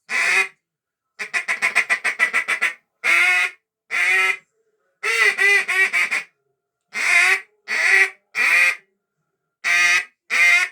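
Goose call made by Dima Melnikov, blown in short honks with a fast string of quick clucking notes about a second in, then single and paired honks spaced out to the end.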